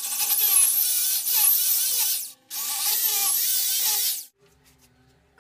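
Handheld electric drill with a 6 mm bit boring into ceramic wall tile: a loud, whining run of about two seconds, a brief pause, then a second shorter run before it stops.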